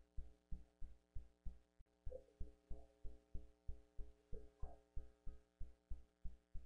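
Faint, even low thumping at about three to four beats a second over a steady hum, with faint murmur of voices now and then.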